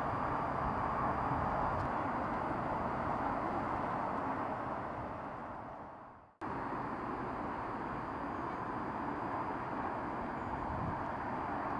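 Steady outdoor background noise that fades out to silence about six seconds in, then cuts straight to the steady running noise of a car driving, as picked up by a dashcam.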